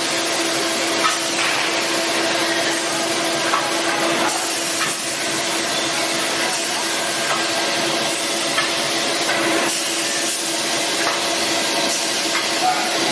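Automatic ice cream cup filling line running: a steady machine hiss and hum with a constant tone, with a few light clicks here and there.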